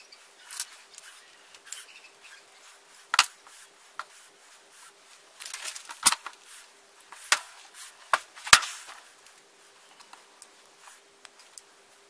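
Hand-tool work on a wooden base: pliers clicking and a flat sheet and parts knocking on the wood, half a dozen sharp knocks, loudest in the middle and sparser in the last few seconds, over a faint steady hum.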